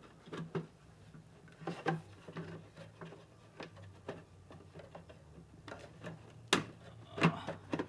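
Scattered light clicks and taps from hands working on a motorcycle headlight assembly, with a sharper click about six and a half seconds in and a few quick clicks shortly after, over a steady low hum.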